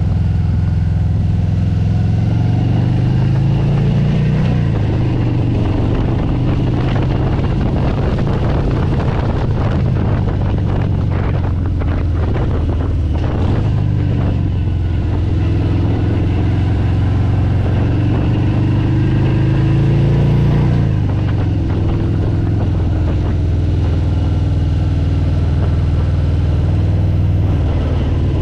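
Motorcycle engine running under way, its pitch rising twice as it accelerates and falling about two-thirds of the way in, with wind noise buffeting the microphone.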